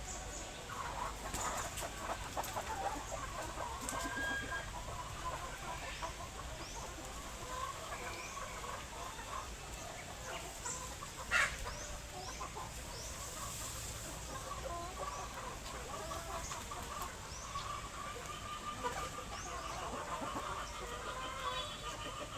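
A flock of chickens clucking and calling, many overlapping short calls throughout, with a single sharp click or knock about eleven seconds in.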